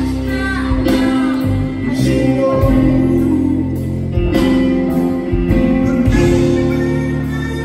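Live rock band music: keyboard chords over electric bass, with a man singing lead.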